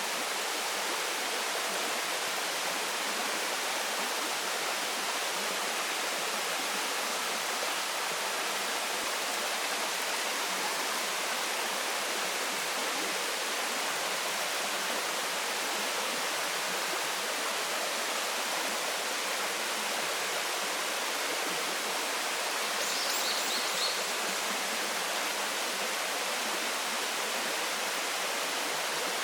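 Waterfall and its stream rushing steadily, an even full hiss of falling water. A brief high chirp cuts through about three-quarters of the way in.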